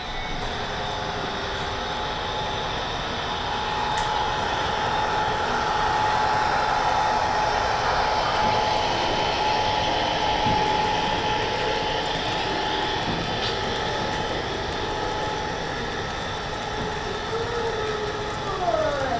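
Model passenger train running on its layout track: a steady rumble and clatter of its wheels and motor. A steady tone runs through the middle, and a couple of falling glides come near the end.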